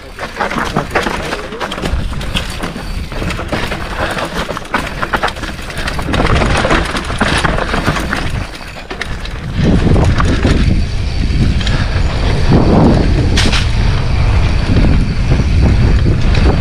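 Mountain bike descending a rough dirt trail, its tyres crunching over dry bamboo leaves, rocks and roots while the bike clatters and rattles with every bump. From about ten seconds in, a heavy low rumble of wind on the microphone joins it as the bike gathers speed.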